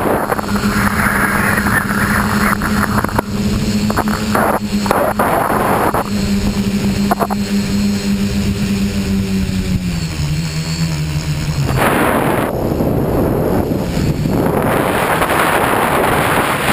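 Tricopter's brushless motors and propellers buzzing steadily in flight, the pitch stepping down about ten seconds in as the motors slow. From about twelve seconds in, wind rushing over the onboard microphone takes over.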